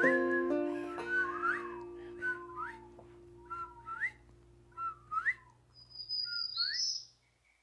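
The closing chord of an acoustic folk song fading out under a run of whistled bird-call imitations, about one a second. Each call is a short note followed by a quick rising slide, with a higher, longer whistle near the end before the sound cuts off.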